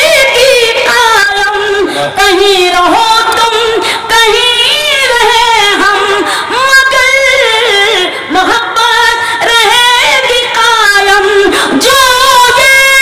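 A woman singing an Urdu ghazal in tarannum, the melodic style of mushaira recitation, into a microphone. She draws out long notes that bend and waver, with only short breaths between phrases.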